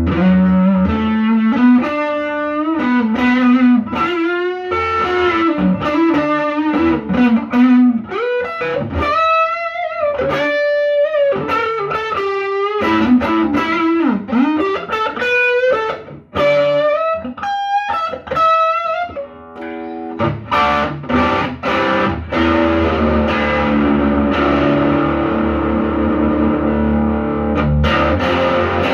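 Westminster SG electric guitar played with distortion: single-note lead lines with string bends and vibrato, then sustained, ringing distorted chords from about two-thirds of the way in.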